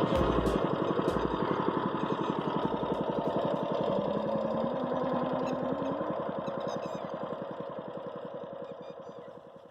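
Small boat's engine running at a steady speed, a fast even putter, gradually fading away toward the end.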